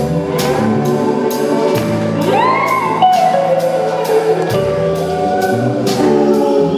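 A large soul-rock band with horns, two drummers, bass and electric guitar playing a song live, drums and cymbals keeping a steady beat under held chords. About two seconds in, a high wailing line slides up and bends over the band.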